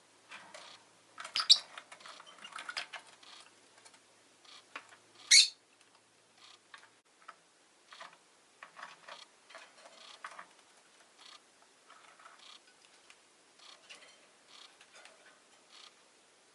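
Rosy-faced lovebird chirping in short, sharp calls mixed with small scratchy clicks, busiest in the first few seconds. The loudest calls come about a second and a half in and about five seconds in, the second a quick rising squeak. Sparser chirps and clicks follow.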